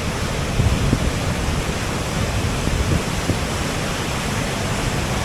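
Steady rush of white water at Muskoka Falls: excess river water swollen with spring snowmelt running off down the river below the power station.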